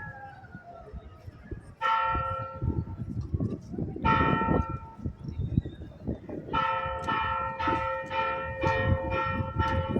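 A single church bell struck twice with slow pauses so that each stroke rings on and fades, then struck quickly and evenly, about three strokes a second, from a little past halfway.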